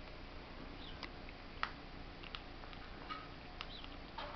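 Eurasian red squirrel chewing a dry corn kernel held in its front paws: small sharp crunching clicks at an irregular pace, about one every half second to second.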